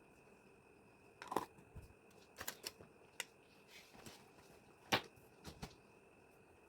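Handling noises: irregular clicks and light taps of small makeup items and their packaging, about six in all, the loudest two about a second in and about five seconds in.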